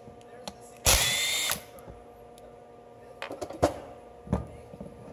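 Power tool whirring in one short burst of under a second, spinning out the lower bolt on a new brake caliper. It is followed by a few sharp metal clunks as the caliper parts are handled.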